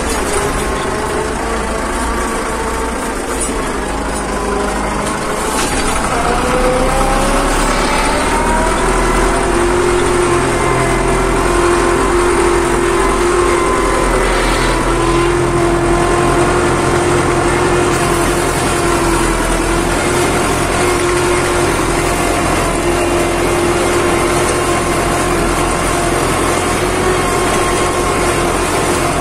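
Fiat 640 tractor's four-cylinder diesel engine running steadily under load while pulling a plough through the soil. Its pitch rises a few seconds in, then holds steady.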